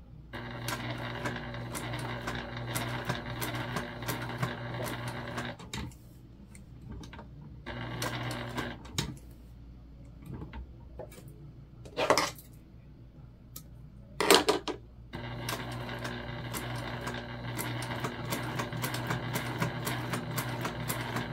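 Electric sewing machine top-stitching a bag tag onto vinyl, running in stretches: about five seconds of steady stitching, a pause with a brief burst around eight seconds, then two short louder noises around twelve and fourteen seconds, then steady stitching again from about fifteen seconds on.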